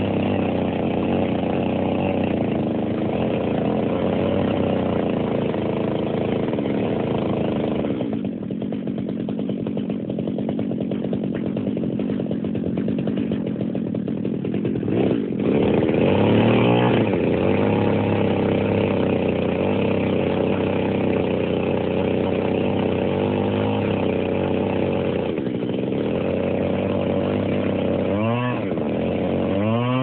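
Gas chainsaw running steadily as it cuts through a tree branch. About a third of the way in, its note drops and thins for several seconds before picking back up. It revs up and down in quick swoops a few times near the end.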